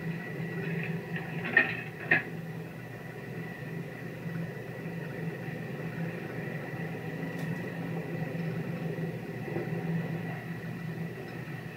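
Steady low hum and hiss of an early sound-film soundtrack, with the faint murmur of a subway platform. About one and a half seconds in come two sharp clicks half a second apart, as a chewing-gum vending machine is worked.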